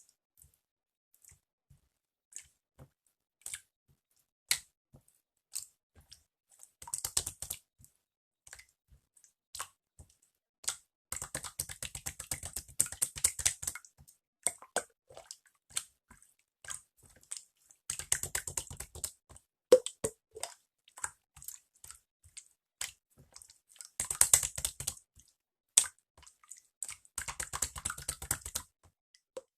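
Slime being squeezed and poked by hand: scattered sharp clicks and pops, broken by several runs of dense crackling, the longest about three seconds.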